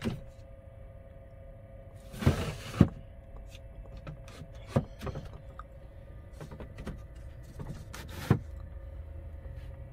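Wooden cabinet door being handled and moved by its knob: a scraping clatter with two sharp knocks about two seconds in, then single knocks near the middle and near the end, over a steady hum.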